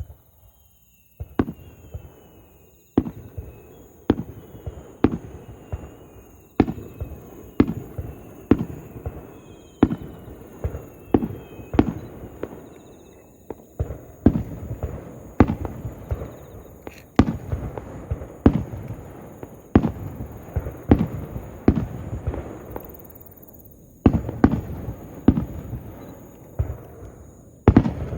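Aerial fireworks bursting in a steady run, about one sharp bang a second, each followed by a rumbling echo that trails off; the bangs start about a second in.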